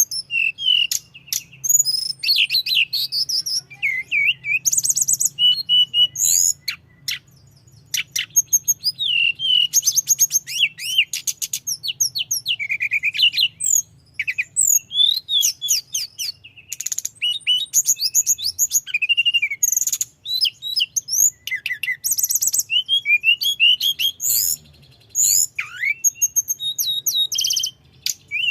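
Tledekan gunung singing a long, continuous rolling song: rapid strings of high chirps and whistles that sweep quickly up and down, with only brief pauses. A faint low hum runs underneath.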